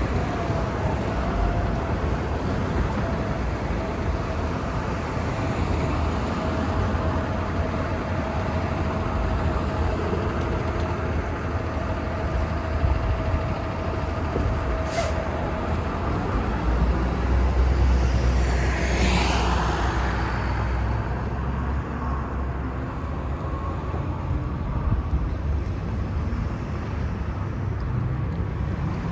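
Street traffic with city buses and cars going by. A steady whine runs through the first half, and a heavy vehicle passes close about two-thirds of the way through.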